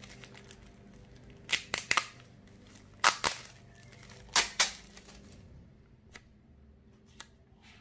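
Clear plastic wrap crinkling and crackling as it is pulled off and crumpled by hand, in three short bursts of sharp crackles, then a couple of light ticks of packaging pieces being handled.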